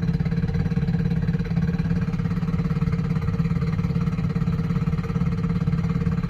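Steady mechanical drone with a fast, even pulsing from a 2008 Chevy Impala running in neutral with its front drive axle spinning. The noise comes from a CV axle that has come disconnected from the wheel, so the shaft turns freely.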